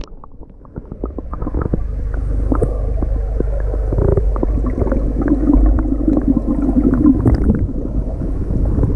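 Pool water sloshing and splashing around a beginner swimmer pushing off the wall and gliding, over a steady low rumble.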